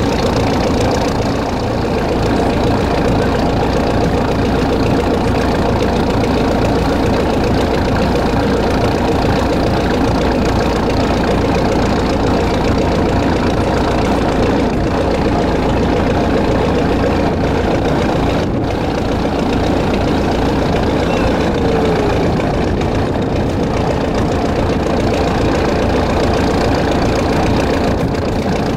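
The Hotspur IV passenger ferry's engine running steadily under way: a loud, even drone with a fast low pulsing, heard from the open deck with the wash of water alongside.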